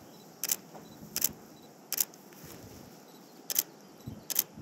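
Five short, sharp clicks at uneven intervals, roughly one a second, over a faint steady hiss.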